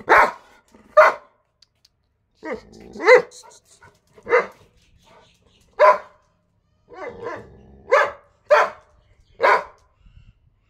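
A dog barking in short single barks, about ten of them spaced a second or so apart, some coming in quick pairs.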